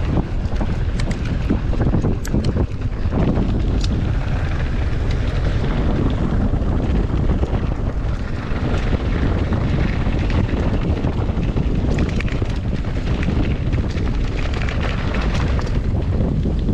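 Wind rushing over the camera microphone at speed on a mountain-bike descent, mixed with tyre noise on dirt and scattered sharp clicks and knocks from the bike's chain and frame rattling over rough ground.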